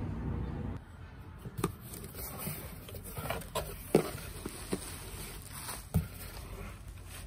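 Hands handling an opened cardboard box: rustling and scraping of cardboard and packing, with a few sharp knocks, the loudest about four and six seconds in. A low steady rumble fills the first second before it stops abruptly.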